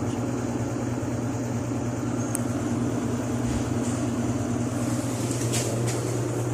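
LG inverter washing machine running with a steady low hum.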